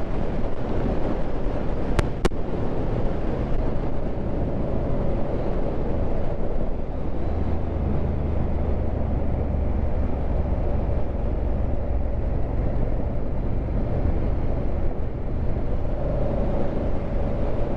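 A 2019 Honda Africa Twin CRF1000L's parallel-twin engine running steadily under way, with a low hum that swells in the middle and wind rushing over the microphone. Two sharp clicks come about two seconds in.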